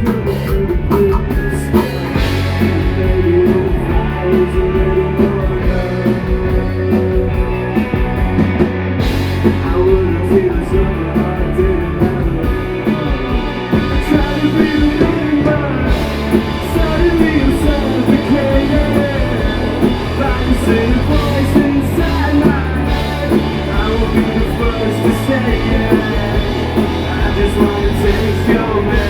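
Live rock band playing loudly: electric guitar, bass and drums with singing.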